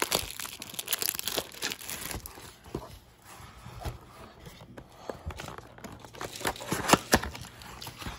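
Plastic shrink-wrap crinkling and tearing as it is pulled off a cardboard trading-card box, densest in the first two seconds, then scattered crackles and a sharp snap about seven seconds in.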